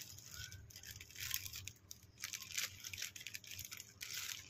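Plastic bag crinkling and rustling in irregular bursts as maida flour is shaken out of it into a steel plate.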